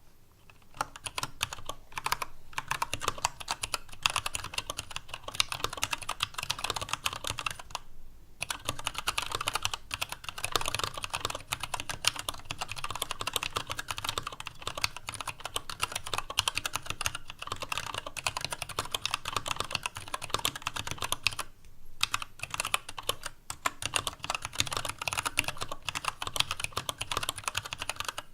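Continuous typing on a TADA68 65% mechanical keyboard with Gateron Brown tactile switches, a stainless steel plate and dye-sub PBT keycaps in an ABS case: a fast, steady stream of keystrokes with a hollow sound from the largely empty case, broken by short pauses about 8 and 21 seconds in. Desk noise knocks along underneath.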